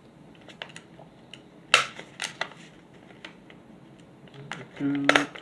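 Desk stapler clicking shut on mini-comic pages, with light paper handling: a sharp snap about two seconds in, another soon after, and small clicks between. A brief hum of a voice near the end.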